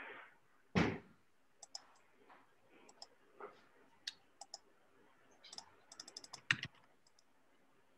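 Computer mouse and keyboard clicks at a desk, scattered through the stretch, with a quick run of clicks shortly before six and a half seconds in. A heavier thump about a second in and another near six and a half seconds in.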